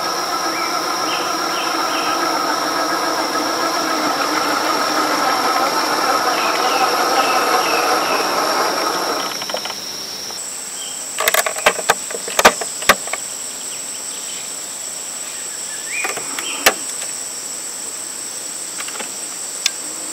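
Electric motor and gear drivetrain of an RC4WD 1/10 scale Range Rover Classic crawler whining as it drives over gravel, for about the first half. A steady high buzz of insects runs underneath. In the second half the driving stops and a few sharp clicks are heard.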